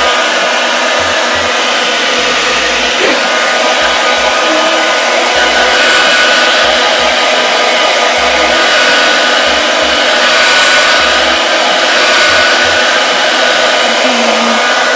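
Handheld hair dryer running steadily: a loud, even rush of air over a constant high motor whine.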